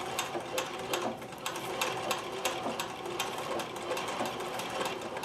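Consew sewing machine stitching heavy topstitching thread through felt, with a steady, even run of needle strokes.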